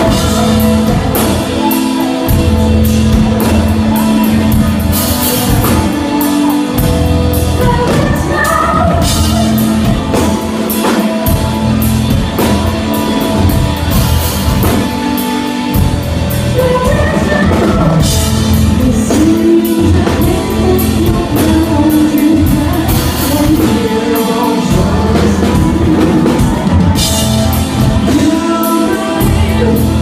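Live rock band playing loudly: electric guitars, bass guitar and drum kit, with the lead singer's voice over them.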